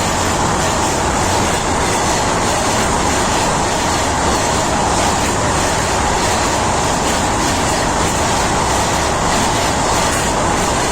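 Indian Railways train running over the track close above, its wheels on the rails making a loud, steady rumble.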